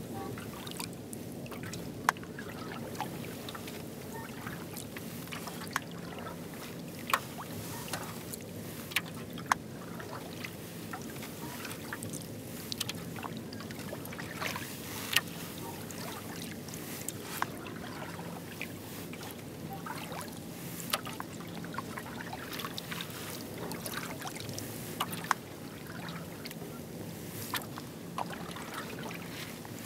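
Kayak paddled with a double-bladed paddle on calm water: water swishing and dripping off the blades, with irregular sharp clicks and knocks every second or two over a steady low hum.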